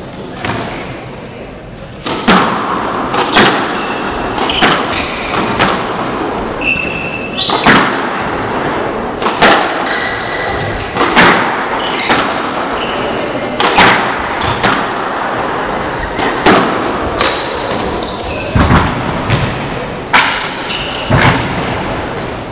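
A squash rally on a hardwood court: the ball cracks off rackets and walls about once a second from about two seconds in, echoing in the hall, with short sneaker squeaks on the floor between strikes.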